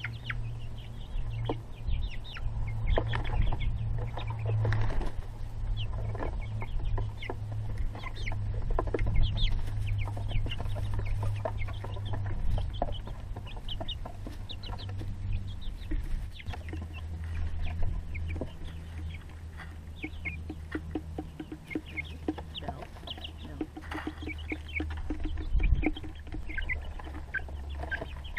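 Chickens clucking and giving short calls as they come out of the coop and down the ramp, over a steady low hum, with one sharp knock near the end.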